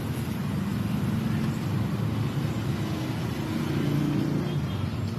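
Street traffic: motorcycles and cars running past, a steady engine rumble, with one engine's note standing out briefly past the middle.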